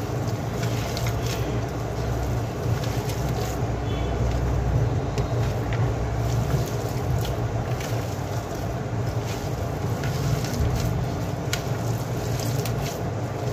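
Hands squishing and mixing mashed potato with chopped vegetables in a steel plate: soft squelching with scattered light ticks against the metal, over a steady low hum.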